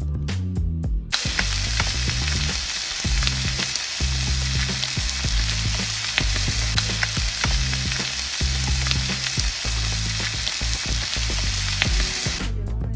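Fish frying in olive oil in a pan: a steady sizzle full of small crackling pops. It starts abruptly about a second in and stops just before the end, with background music underneath.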